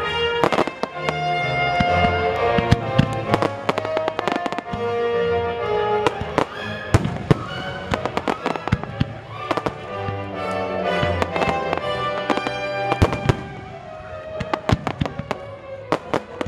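Fireworks display: a rapid, irregular series of sharp bangs from bursting shells, thickest near the end, over music with sustained notes.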